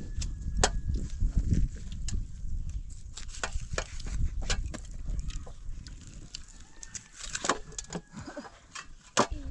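Kitchen knife clicking and scraping against a metal tray as raw chicken is cut up, a string of irregular sharp clicks, with a low rumble over the first couple of seconds.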